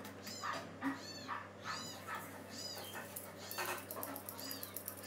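A small animal cries repeatedly in short, high-pitched calls, each rising and then falling, about one every half second to second, over a faint steady hum.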